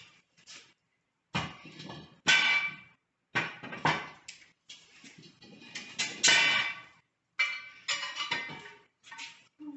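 Iron hearth cookware clanking: a long-handled iron utensil knocking against cast-iron pots and lids, in a string of sharp metallic clanks with short ringing, roughly one a second.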